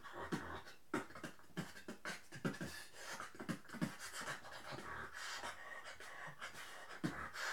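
Drumstep beatboxing into a handheld microphone: a fast, uneven rhythm of mouth-made kick thumps, snare and hi-hat clicks, with breathy hissing sounds between them.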